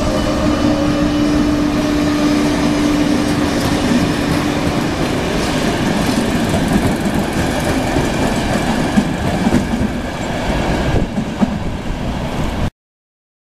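Train passing close by: a steady rumble of wheels on rail, with an electric locomotive's steady hum for the first few seconds. The sound cuts off suddenly near the end.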